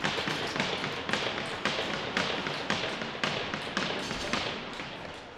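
Rhythmic knocks, about two a second, that fade out near the end.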